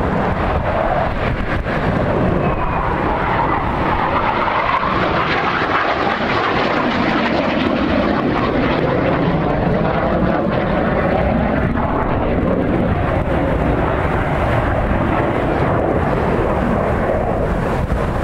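An airplane flying past overhead, its engine noise loud and steady, with a pitch that slides slowly downward through the middle. Wind buffets the microphone underneath it.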